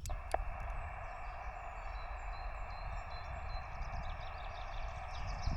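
Band noise from a LAB599 TX-500 shortwave transceiver's speaker in SSB receive: a steady, narrow hiss, with two short clicks right at the start. Birds chirp faintly and repeatedly in the background.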